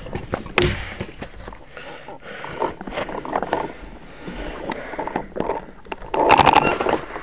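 Paintball markers firing in scattered pops and knocks, with a quick string of shots about six seconds in, the loudest moment.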